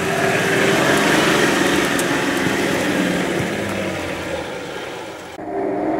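Off-road Nissan Patrol's engine running steadily as the 4x4 crawls up a forest slope, easing slightly near the end before the sound cuts off abruptly.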